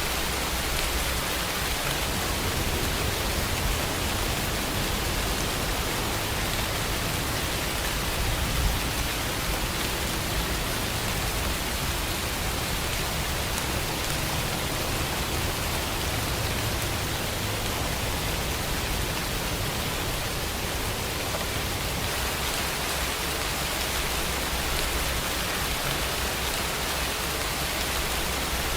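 Steady rainfall, an even hiss of many drops without a break, with a low rumble underneath that swells and fades.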